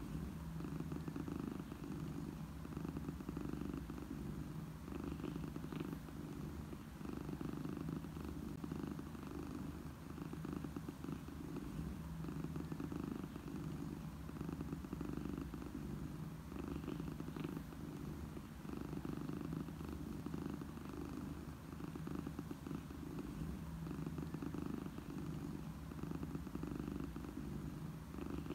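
A contented cat purring steadily, a low rumble that swells and eases with each breath, about every two seconds.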